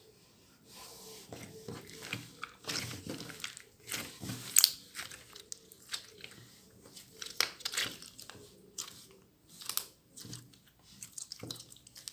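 Slime being squeezed and worked by hand, giving irregular sticky clicks and crackles, a sound described as water-like.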